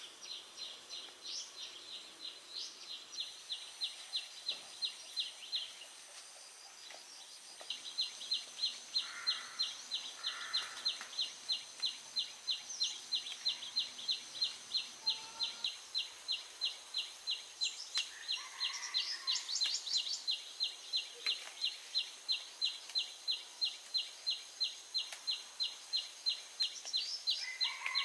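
Rural outdoor ambience: a steady, even high chirping at about three chirps a second, which stops for a couple of seconds about six seconds in and then carries on, with a few lower bird calls over it.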